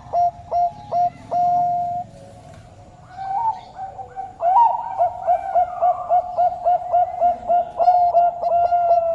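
A Bangkok turtledove cooing: a quick string of short clipped coos ending in a longer held note, a brief pause, then a long run of rapid short coos, about four a second.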